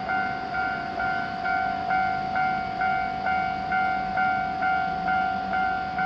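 Japanese railroad crossing's electronic warning bell ringing, an even repeating ding a little over twice a second. It warns that a train is approaching as the crossing barriers lower.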